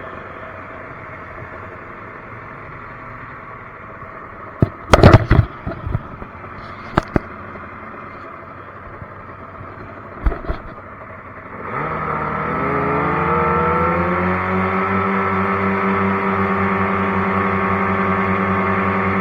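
Jet boat engine running low and quiet, broken by a few loud knocks and clatters about five seconds in and again near seven and ten seconds. About twelve seconds in the engine revs up, then holds a steady, louder run.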